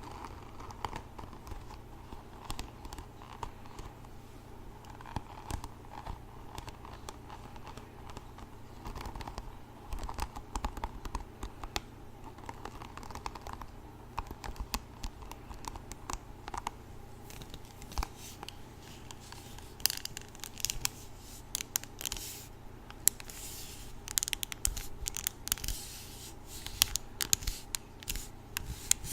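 Hairbrush bristles scratched and rubbed close to the microphone in crackly scratching strokes. The strokes grow denser and louder in the last third.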